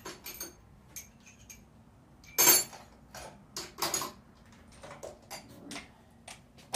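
Metal hand tools clinking and knocking in a series of separate sharp clacks, the loudest about two and a half seconds in, as a chrome socket extension and socket are picked out and fitted.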